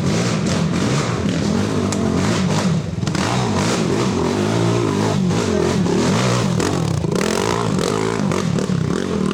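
Several racing ATV engines running hard together, their pitches rising and falling over one another as the riders get on and off the throttle.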